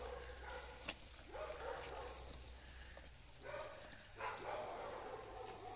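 Dogs barking faintly a few times in the distance, about a second and a half in and again near four seconds, over faint high insect chirps.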